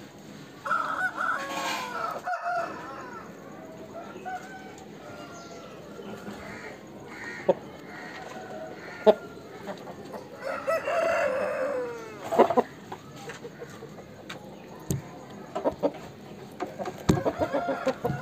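Aseel roosters crowing twice, about a second in and again about ten seconds in, with a few sharp clicks in between and toward the end.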